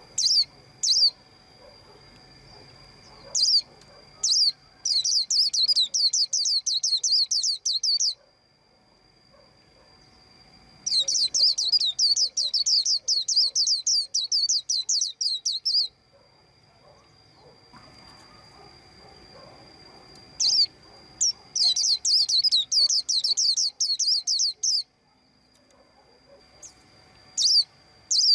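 A white-eye chirping: scattered single high chirps, and three runs of rapid, closely repeated chirps, each lasting three to five seconds.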